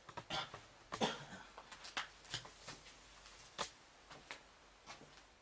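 Irregular rustling and light knocks, about a dozen short sounds over a few seconds, of a person moving about and handling clothing and objects.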